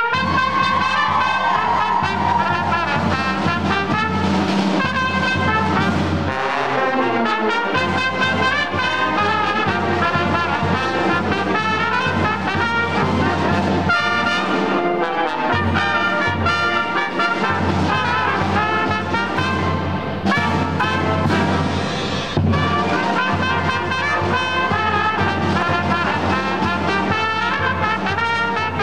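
Brass band playing a tune, with trumpets and trombones leading over steady low bass notes.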